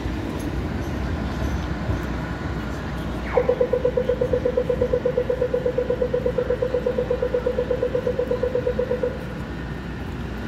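Australian audio-tactile pedestrian crossing signal: a quick falling 'laser' sweep, then rapid, evenly spaced ticking for nearly six seconds, marking the walk phase at a signalised intersection. A low, steady traffic and tram rumble runs underneath.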